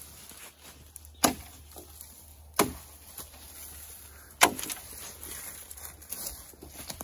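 Footsteps through dry brush and fallen branches, with rustling and small ticks, broken by three sharp cracks of wood snapping or knocking.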